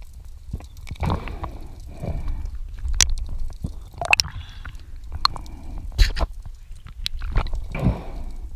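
Muffled underwater sound from a diver's camera: water swishing and rumbling against the housing in repeated swells, with several sharp clicks and knocks from handling.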